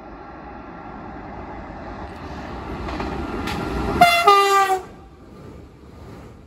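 Double-deck TER electric train approaching, its rolling noise growing steadily louder. About four seconds in it gives a short horn blast of under a second on two tones as it comes close, and the rumble drops away quickly after it passes.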